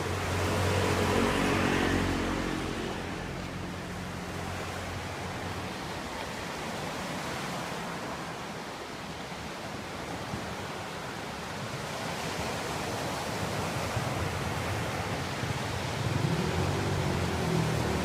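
A steady outdoor rush of noise, with a vehicle engine passing in the first two seconds and another engine drawing near at the end.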